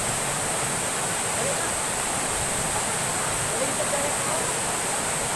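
Steady rushing of a waterfall pouring into a pool, with faint voices of children swimming.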